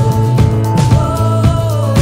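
Upbeat outro music with a steady drum beat, a prominent bass line and sustained melody notes.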